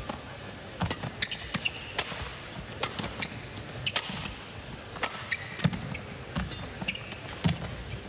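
Badminton rally: sharp pocks of racket strings hitting the shuttlecock about once a second, with court shoes squeaking and feet thudding on the court mat between shots.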